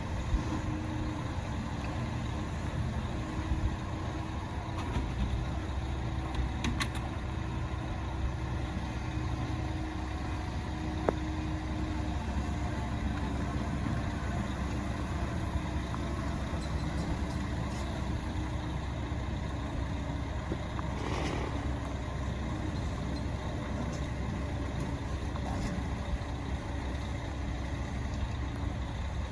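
Bell 205 helicopter running steadily: its single turboshaft engine and two-blade main rotor make a continuous low drone with a steady hum above it.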